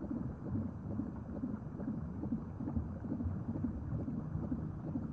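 Low, irregular rumbling ambience with no clear tune or speech, laid under the embryo footage as the film's sound bed.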